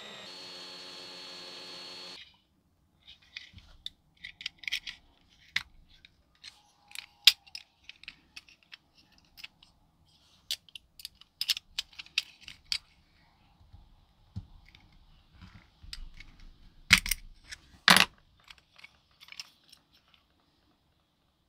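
A small electric drill runs steadily and stops about two seconds in. Then come scattered light clicks and metallic clinks of small metal parts being handled and set down, with two sharper knocks near the end.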